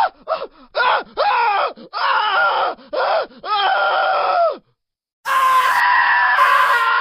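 A person screaming: a run of short yelps, each rising and falling in pitch, that lengthen into longer screams. After a half-second break comes one long held scream that drops in pitch at the end.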